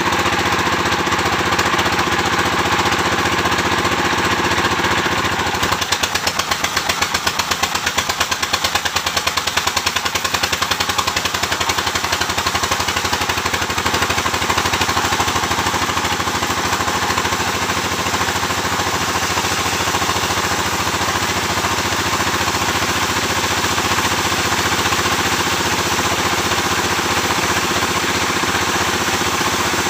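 Sawmill machinery running with a loud, steady mechanical drone; about six seconds in, a rapid rattling pulse sets in for several seconds before it settles back to a steady drone.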